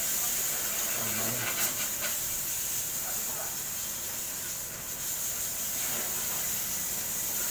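A steady high hiss, with a light click about one and a half seconds in.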